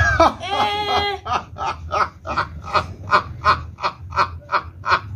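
A man laughing hard: a high, gliding whoop about a second long, then a long run of rhythmic 'ha' bursts, about four a second.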